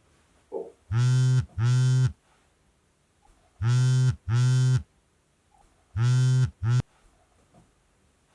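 Mobile phone vibrating for an incoming call: pairs of steady, flat-pitched buzzes about two and a half seconds apart, the last pair cut short.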